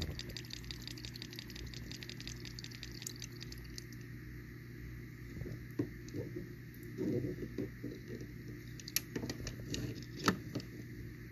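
Fine, fast crackling of a land crab blowing bubbles at its mouthparts, dying away after about four seconds. Then the crab shifts in its shallow water with soft sloshing, and its legs click sharply on the plastic tub a few times near the end.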